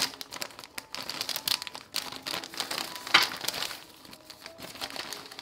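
Plastic food packaging crinkling and rustling as hands pull a sealed plastic pouch of rice-cake noodles out of a printed plastic bag, with the loudest rustle about three seconds in.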